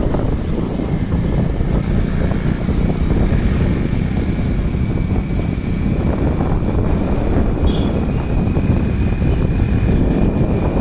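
Steady wind buffeting the microphone over the running rumble of a vehicle, as the camera rides along a road.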